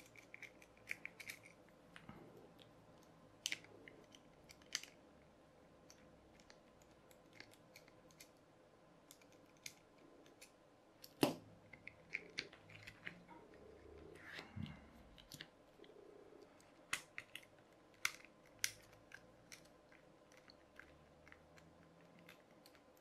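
Scattered small clicks and taps of plastic parts and a small screwdriver as a toy racing car's plastic chassis is taken apart by hand, irregular and quiet, with one sharper click about eleven seconds in.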